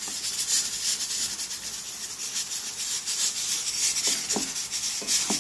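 Spicy sauce bubbling and sizzling around octopus, shrimp and mushrooms in a pan: a steady crackling hiss as the liquid boils down.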